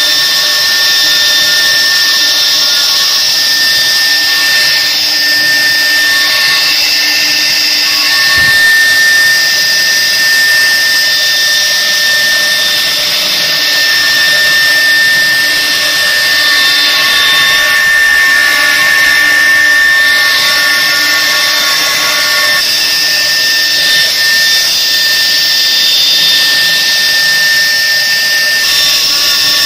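Water-cooled 3 kW spindle of a double-head CNC wood router running at speed with a steady high-pitched whine as its bit routes grooves into an MDF panel. Fainter tones come and go as the head moves along the cut.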